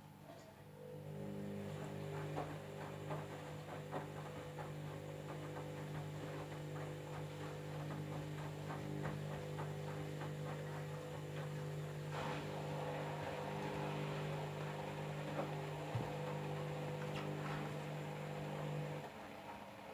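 Candy washing machine running its jeans cycle: a steady motor hum with small knocks and clicks from the load, starting just after the beginning and cutting off about a second before the end.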